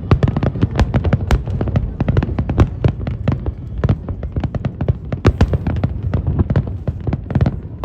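Fireworks going off in a rapid, dense string of bangs and crackles, several a second, over a low rumble of booms.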